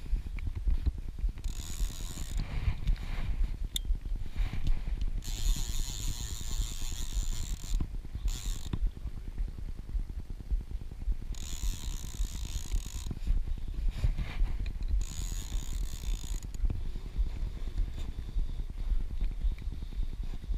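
Fly reel's ratchet buzzing in several separate bursts of one to two seconds as line goes out and comes in while a salmon is played on a bent fly rod. Under it, a steady low wind rumble on the microphone is the loudest sound.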